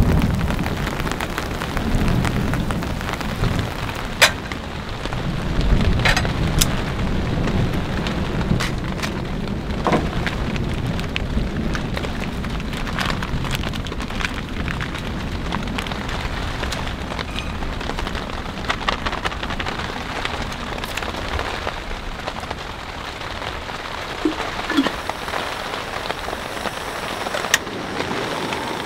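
Heavy rain falling steadily, with low rumbles of thunder over the first several seconds and a few scattered sharp ticks.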